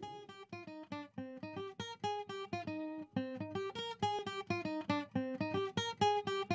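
Background music: a guitar picking a quick, steady run of notes, several a second.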